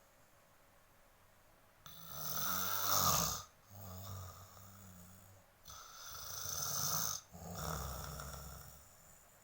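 A person snoring heavily, in two breath cycles starting about two seconds in, each a louder snore followed by a softer one. The snore is likened to a revving motorbike or a lion's roar.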